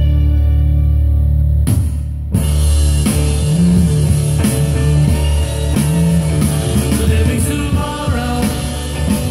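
Rock music played back through a Braun hi-fi loudspeaker. A sustained, droning passage breaks off about two seconds in, and a rock track with a drum beat starts.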